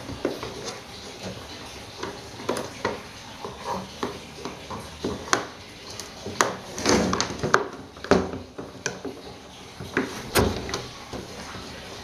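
A plastic table fan housing with its cord being handled and turned over on a wooden workbench: scattered clicks, knocks and light clatter, busiest a little past the middle, with one sharper knock near the end.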